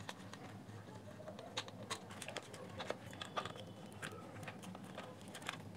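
Faint, scattered light clicks and taps of small plastic parts and a circuit board being handled by hand as the remote-sensor board is worked out of a speaker's plastic housing.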